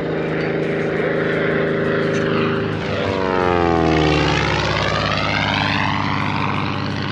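Low-flying propeller airplane passing close by: its engine drone builds, is loudest about four seconds in, and drops sharply in pitch as it goes past and away.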